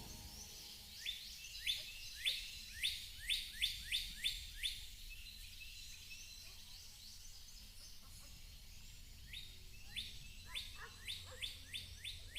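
A bird singing: runs of short, sharp upsweeping notes that come faster and faster, one run in the first few seconds and another near the end, over a faint steady outdoor hiss.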